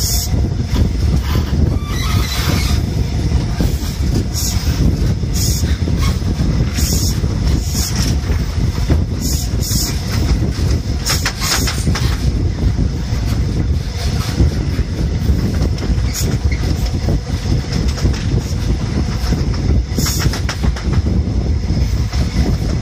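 High Speed Train running at speed, heard from an open coach window: a steady heavy rumble of wheels on rail with irregular sharp clicks, mixed with wind rushing over the microphone.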